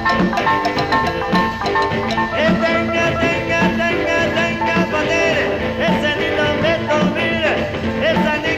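Background music with a steady beat; a gliding melody line comes in about two and a half seconds in.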